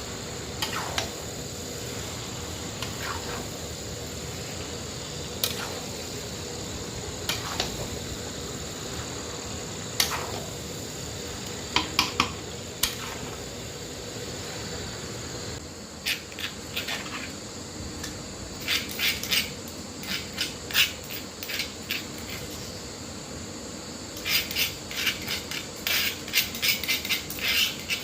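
A metal spoon or ladle knocking and scraping against a cooking pot during stirring. There are single clinks every second or two at first, then quick runs of rattling strokes in the second half, over a steady background hiss.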